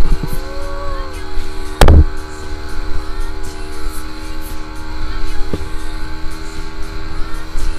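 Motorboat engine running at a steady pitch, with one loud thump about two seconds in and a lighter knock later.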